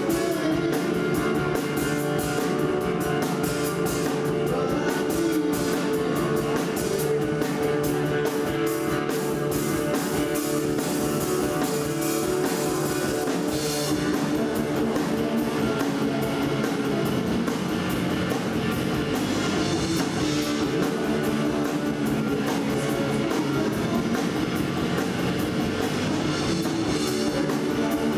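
Live rock band playing: electric guitars, bass guitar and drum kit. The drummer's cymbals wash through the first half and drop back about halfway through.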